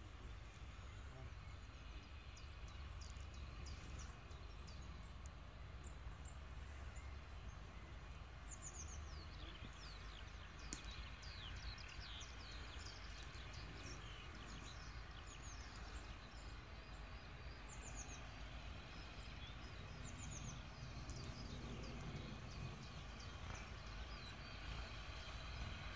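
Small birds singing, a run of short high chirps and quick falling notes, over a steady low rumble.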